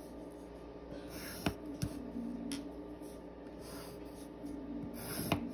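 Graphite pencil drawn along a ruler's edge on paper: faint scratching strokes ruling straight lines, with a few light clicks and taps.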